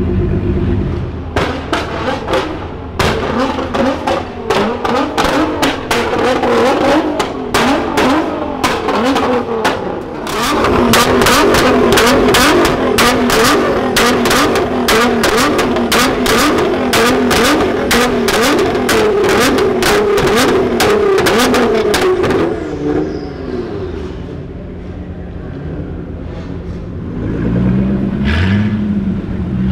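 Nissan GT-R R35's twin-turbo V6 through a straight-piped Armytrix exhaust, revved over and over while standing, with rapid crackles and pops as each rev falls away. It then settles back to idle and is blipped a couple of times near the end.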